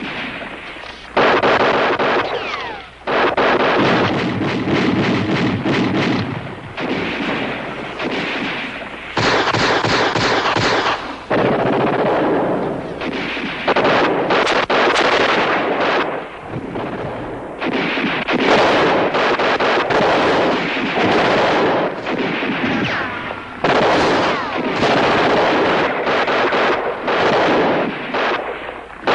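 Heavy gunfire: long bursts of rapid automatic fire, each a few seconds long, with short breaks between them.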